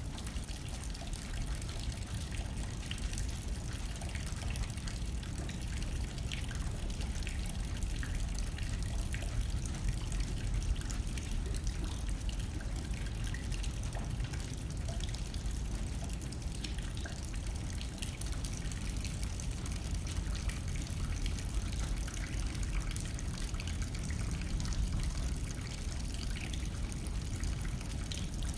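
Steady rain pattering on a window, with many small drop ticks over a low, even rumble of wind.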